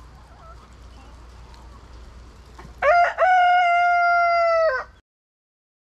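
A rooster crowing once, about three seconds in: a short broken start, then a long held note lasting about two seconds.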